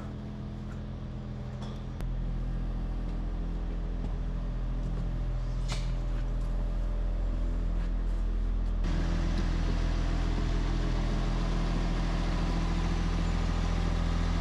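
An engine idling steadily: a low, even hum that holds one pitch. It steps up in loudness about two seconds in and again about nine seconds in.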